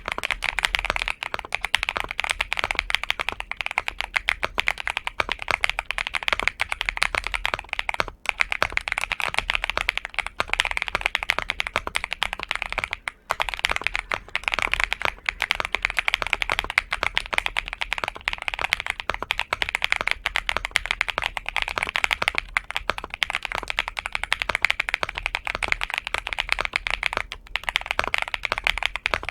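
Continuous fast typing on a Xinmeng M75 Pro mechanical keyboard with Dark Plum switches: a dense stream of keystrokes, with brief pauses about 8 and 13 seconds in.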